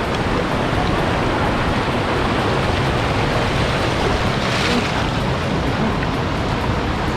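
Rushing water of a stream, a steady, even noise.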